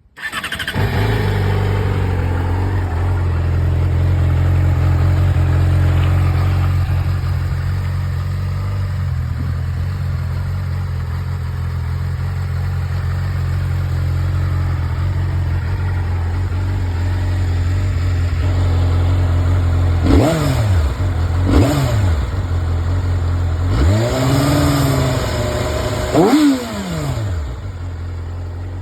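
Yamaha R6's 600 cc inline-four on its stock exhaust starting up and settling into a steady idle, then revved: two quick blips about twenty seconds in, a longer held rev, and one more sharp blip near the end, each dropping straight back to idle.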